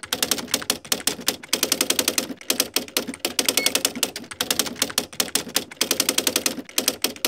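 Typewriter sound effect: keys clacking in quick runs of strikes with short pauses between runs, and a short ding about three and a half seconds in.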